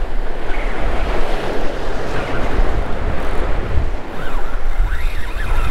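Wind buffeting the microphone in loud, uneven gusts, over the wash of surf against a rock jetty.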